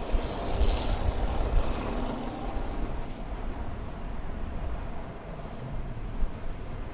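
Boeing 737-800 jet engines rumbling as the airliner rolls out down the runway after landing. The rumble is loudest in the first couple of seconds and then eases off, with some wind buffeting the microphone.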